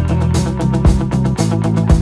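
Instrumental background music with guitar and drums keeping a steady beat.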